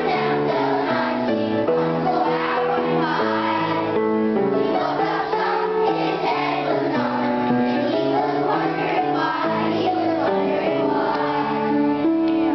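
A chorus of children singing a song together, with music behind them.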